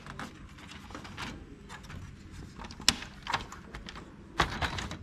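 Plastic paper guides in a laser printer's paper tray sliding and clicking against a stack of A4 paper, with a sharp click about three seconds in and a louder clatter near the end.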